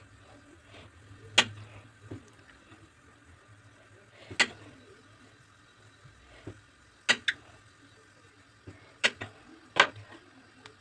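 Knife cutting a block of hard homemade soap into bars, the blade knocking sharply on the granite countertop as it comes through each slice: about six short knocks every couple of seconds, two of them close together.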